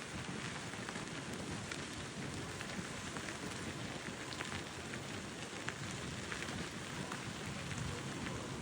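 Steady rushing noise with many faint crackles, from a bicycle ride: tyres rolling on the seawall path, with wind on the microphone.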